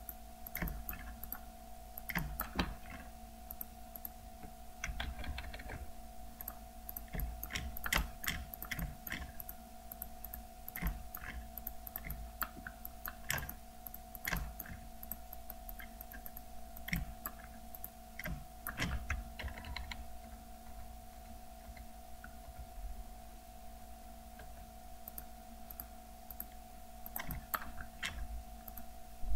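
Irregular clicks of a computer mouse and keyboard, some in quick clusters, over a faint steady electrical hum.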